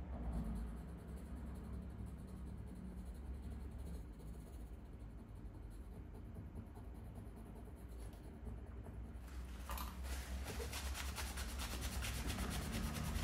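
Old, partly hardened thermal paste being rubbed and scraped off a laptop's CPU cooling surface. There is a soft scratchy friction over a low hum, turning into quick, dense scraping strokes in the last few seconds.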